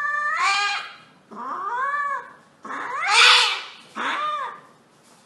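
Domestic cat yowling repeatedly while restrained. There are about four drawn-out calls that rise and fall in pitch; the third, a little past the middle, is the loudest and harshest, and the last is short.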